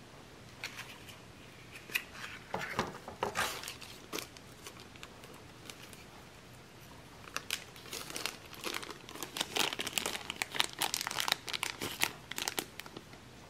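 Thin plastic packaging crinkling and crackling as it is handled. There is a short spell of crackles near the start, then a longer, denser stretch of crinkling in the second half as a small clear plastic bag is handled.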